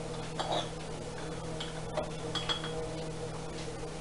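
A few light clinks of a metal spoon against a small glass baby food jar, over a steady low hum.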